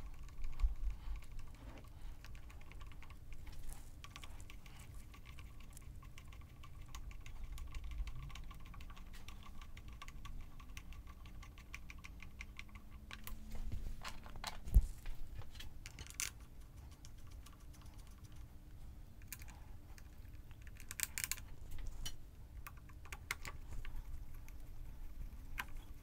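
Screwdriver driving T25 Torx screws into a motorcycle's plastic throttle housing: a long run of small, rapid clicks, with one sharper knock about fifteen seconds in.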